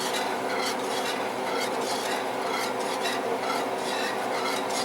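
A utensil stirring and scraping around a pan of simmering soy-and-cornstarch sauce in repeated strokes as the sauce thickens. A steady low hum runs underneath.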